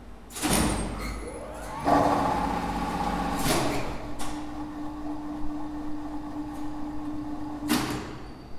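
Lift contactors clacking in the control cabinet while a two-speed lift's hoist motor runs with a steady hum: a loud clack about half a second in, another near two seconds, one around three and a half seconds followed by a lighter click, and a last clack near the end, where the hum stops. It is a lift run with braking resistors switched in while it slows to low speed.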